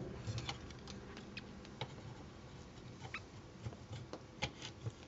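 Light, irregular clicks and taps of hard plastic parts of a Fanstoys Sever transforming figure being handled and pressed together as a leg section is fitted back onto the body.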